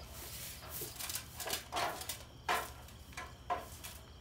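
Broom sweeping a floor: a series of short brushing strokes at an uneven pace, the loudest about two and a half seconds in.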